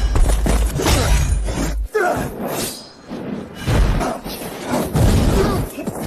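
Film sound effects of a magic clash: a run of shattering crashes and heavy hits with whooshes, over dramatic background music.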